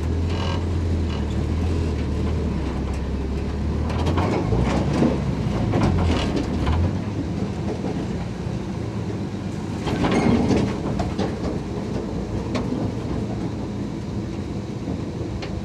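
Dodge M37 truck's flathead straight-six engine running slowly as the wrecker crawls over rough off-road ground. The body and the rigging clank and rattle, with knocks around four to six seconds in and again about ten seconds in.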